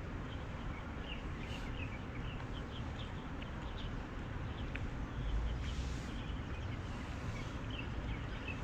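Small birds chirping in short, scattered calls over a steady background rumble, with a low bump on the microphone about five and a half seconds in.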